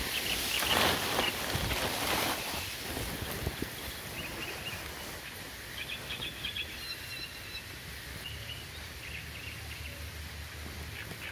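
Outdoor noise of light rain and wind, louder for the first couple of seconds and then easing off, with faint high chirps from about four seconds in.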